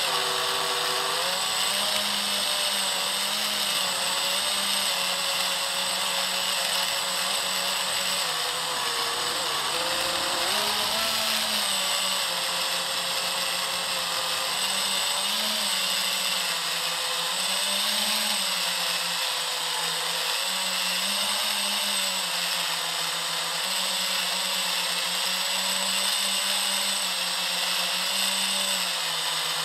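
FPV racing quadcopter's brushless motors and propellers whining in flight, recorded by the camera on board; the pitch keeps rising and falling as the throttle changes.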